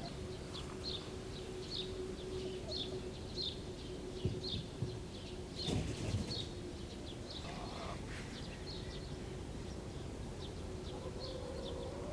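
Small bird repeating a short, high chirp at an even pace, roughly two a second, over a low steady rumble. A few dull thumps come about halfway through.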